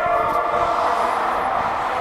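Ice hockey play in an indoor rink: skates scraping and gliding on the ice over a steady arena hum, with a faint click or two.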